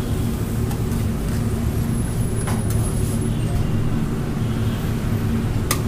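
Steady low rumble of road traffic, with a few light clicks.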